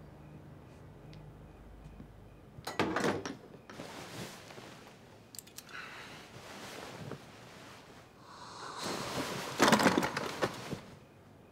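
Bedsheets and blankets rustling in several bursts as a person shifts and turns in bed. The longest and loudest rustle comes near the end.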